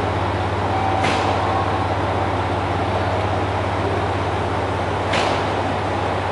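Steady low hum of a train standing at a station platform with its engine running, with two brief high hisses, one about a second in and another near five seconds in.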